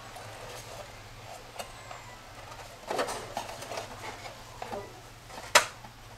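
Wooden case of a Logi-Clock LC-101 being lifted and slid off its metal tube chassis: light scrapes and knocks, a cluster about three seconds in, and one sharp click about five and a half seconds in. A steady low hum runs underneath.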